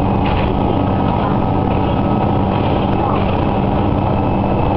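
Diesel railcar running along the line, heard from inside the cabin: a steady engine drone with level low tones over the rumble of wheels on rails.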